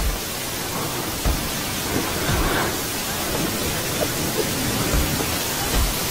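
A loud, steady hiss of static-like noise covering the whole soundtrack, cutting in and out abruptly, with a few dull thumps under it.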